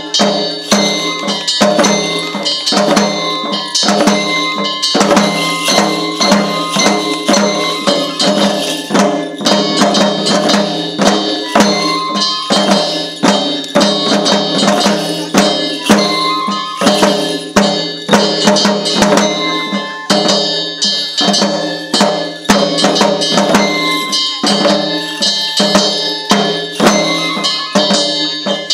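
Japanese shishimai lion-dance music: a taiko drum beaten together with clanging metal percussion in a quick, continuous rhythm, with short ringing high notes over it.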